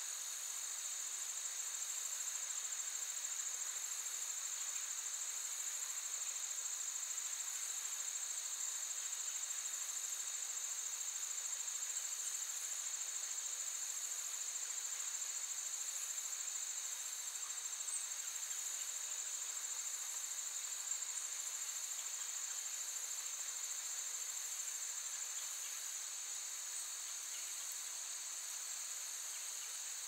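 Steady, high-pitched chorus of insects such as crickets, an unbroken shrill trill that holds at an even level throughout.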